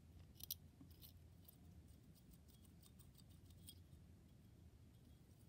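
Faint metallic scraping and small clicks of a drill bit turned by hand inside the flint tube of a vintage Ronson Standard petrol lighter, reaming out a blockage that stops the flint spring from passing. A couple of sharper clicks come about half a second and a second in, then a run of quick faint ticks.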